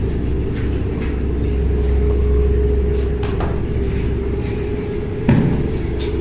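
A steady low rumble with a faint held hum over it, a few light clicks, and one dull thump about five seconds in.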